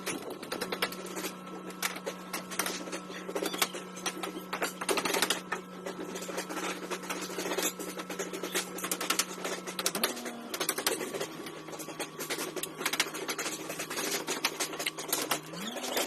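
Construction-site din: rapid, irregular clicking and tapping of tools and materials over a steady machine hum that shifts down in pitch about ten seconds in and rises again near the end.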